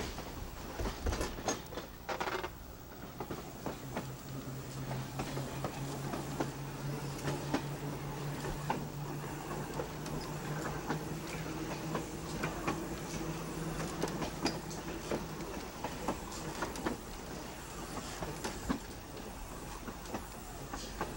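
Philadelphia nearside streetcar 6618 running along the track, heard from aboard: wheels clicking over the rail joints, with a steady low hum that dies away about three-quarters of the way through.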